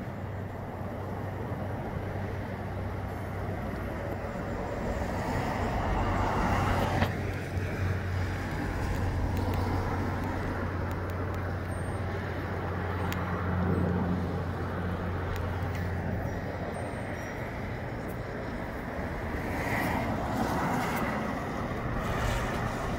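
Gusty wind and rain rushing outside, swelling and easing every several seconds, over a low steady hum that stops about two-thirds of the way through.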